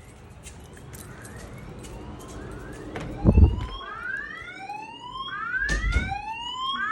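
Wheelock E60 fire-alarm speaker strobe sounding its whoop alert tone, repeated rising sweeps that grow steadily louder: the tone that comes before the spoken evacuation message. Two heavy low thumps about three and six seconds in.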